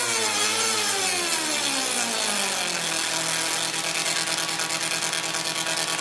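Musical Tesla coil's sparks buzzing out a vehicle sound effect. The pitch slides steadily downward for about three seconds, like an engine winding down, then holds a steady low buzz.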